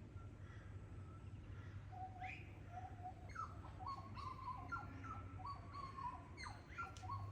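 Birds calling in the bush: a run of short whistled notes and quick upward-sweeping calls that starts about two seconds in, over a steady low hum.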